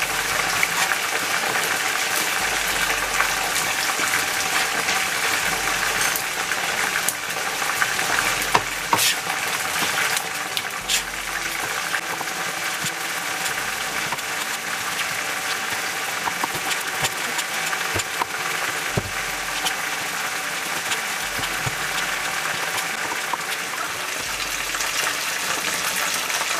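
Starch-coated chicken breast pieces deep-frying in 170 °C oil in a pan, a steady sizzle, with a few scattered knife taps on a cutting board.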